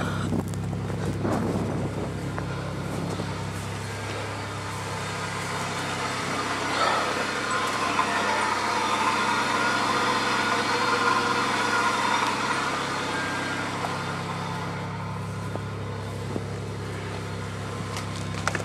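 Chevrolet Impala engine idling steadily just after a cold start in freezing weather, a low even hum, with a rushing hiss that grows louder for several seconds in the middle.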